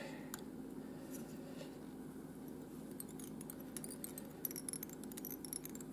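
Faint handling sounds from fly tying: soft rustling, then a flurry of tiny clicks about three to five seconds in, as fingers and a small hand tool work the thread at the head of a tube fly in the vise, over a low steady hum.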